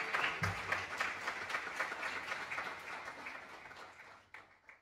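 Audience applauding, the clapping thinning and fading out, with a few last single claps near the end.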